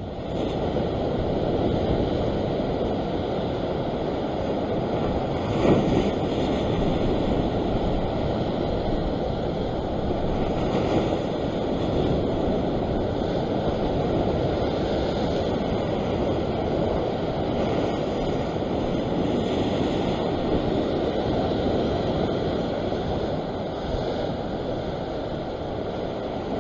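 Ocean surf washing against a rock ledge, mixed with wind on the microphone: a steady rushing noise, with a brief louder surge about six seconds in.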